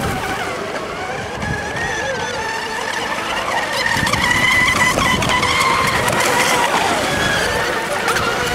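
Radio-controlled Mono 2 class model racing boats speeding around a buoy course, their motors giving a steady high whine made of several tones that rise and fall in pitch as the boats turn, with a hiss of spray and water.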